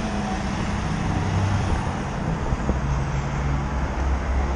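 Road traffic noise: the steady low engine rumble of a motor vehicle nearby, shifting slightly in pitch, over a constant hiss.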